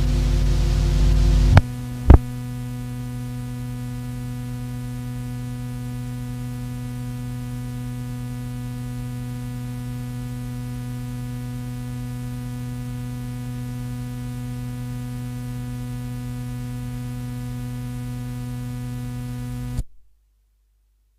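Steady electrical mains hum with a stack of overtones, left on the tail of an old speech recording. A burst of louder noise and a couple of sharp clicks come in the first two seconds, and the hum cuts off suddenly near the end.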